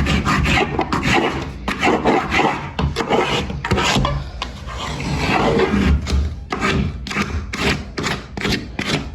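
Metal blade scraping old silicone caulk off a seam in short, repeated strokes, which come faster and more evenly in the last few seconds.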